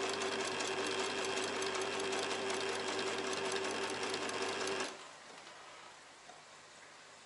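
Old Singer domestic electric sewing machine stitching curtain fabric, its needle going in a rapid, even rhythm over a steady motor hum, then stopping suddenly about five seconds in.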